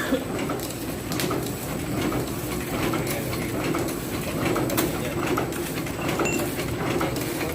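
Repaired cutting machine running steadily on its test run: an even, warbling hum with scattered light clicks.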